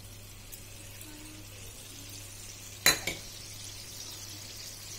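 Water and sugar for a sweet and sour sauce heating in a nonstick pan with a faint steady hiss that grows slightly in the second half. A single sharp clink against the pan comes about three seconds in.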